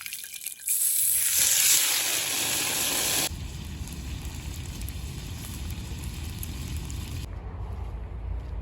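Food sizzling loudly in a hot saj pan for a few seconds, cutting off abruptly, followed by a quieter low rumble.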